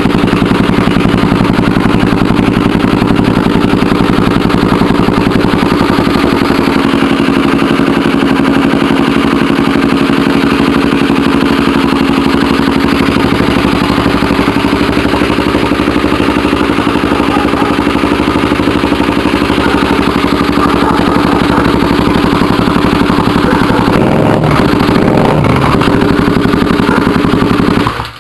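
Kawasaki D-Tracker 250's single-cylinder four-stroke engine idling steadily and loudly through a Delta Barrel 4 exhaust with its silencer insert taken out, giving an open, unsilenced exhaust note. The pitch wavers briefly near the end.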